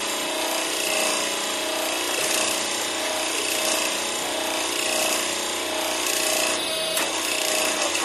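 Electric motor of a converted Harbor Freight towable backhoe, about 2 horsepower on 120 V, running steadily and driving its hydraulic pump with a steady hum and hiss. A single click comes near the end.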